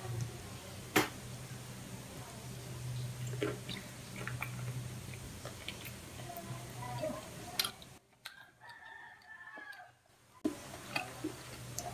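Close-up eating sounds of fingers picking apart grilled cuttlefish and shrimp, and of chewing: scattered soft clicks and smacks, with one sharp click about a second in. A rooster crows in the background in the second half.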